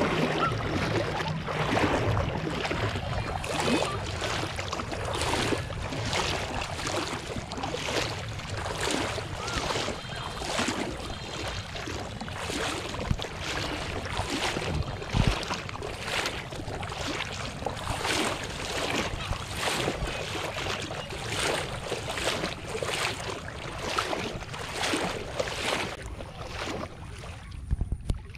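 Pond water splashing and sloshing in a steady rhythm, about two strokes a second, the sound of something moving through shallow water.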